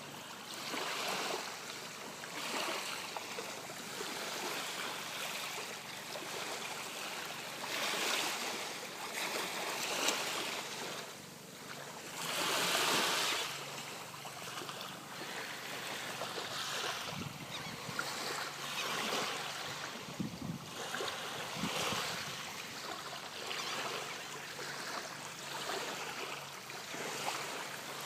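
Waves breaking and washing onto the beach, swelling and fading every two to three seconds, with one louder wash about halfway through.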